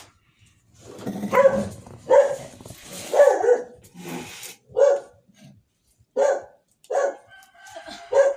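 Dog barking repeatedly, about seven barks spaced roughly a second apart.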